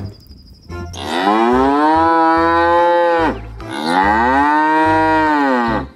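A cow mooing: two long moos, each about two seconds, the pitch swelling up and sinking away at the end.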